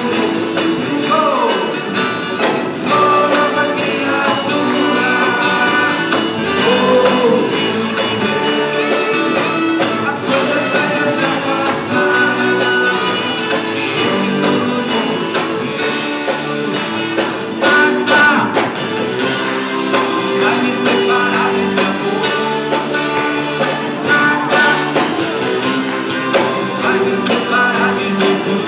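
A live band playing a song: male voices singing over a strummed acoustic guitar and electric guitar.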